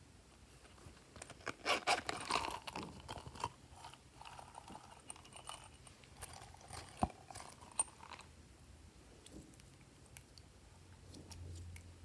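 Crackly, sticky clicking as glossy slime is worked with a silicone pop-it toy pressed into it, loudest about two seconds in and softer after, with a sharp click about seven seconds in.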